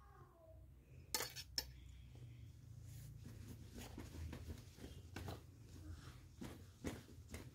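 A metal spoon clinks twice against a stainless steel bowl about a second in, followed by fainter small clicks and knocks.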